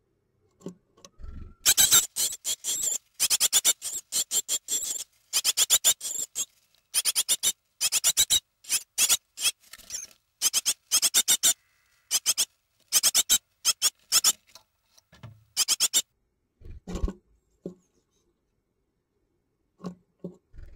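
Almost-fledged nestling birds giving high, squeaky begging calls in rapid trains for about fourteen seconds, then falling quiet. A few soft low bumps follow, and the calling starts again right at the end.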